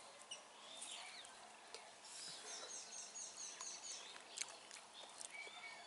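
Faint birds chirping and calling, with a quick run of repeated high chirps about two seconds in, and a few faint clicks.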